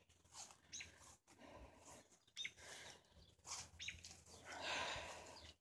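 Faint, scattered short bird chirps, with a brief, louder rush of noise about four and a half seconds in.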